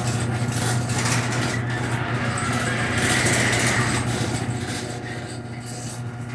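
Chamberlain Accessmaster ½ HP garage door opener running as it closes the door: a steady motor hum with irregular rattling, growing quieter over the last couple of seconds.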